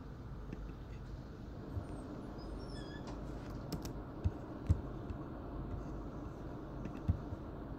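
Mercedes-Benz OC500LE bus running with a steady low rumble, broken by a few short sharp knocks or rattles, the loudest a pair a little past halfway and another near the end.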